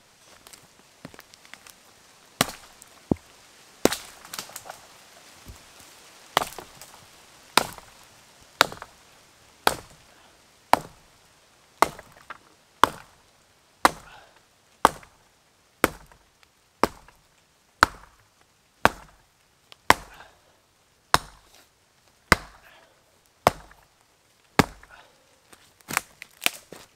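Axe chopping through a thin birch pole near its base, about one blow a second, with a few quicker blows close together near the end.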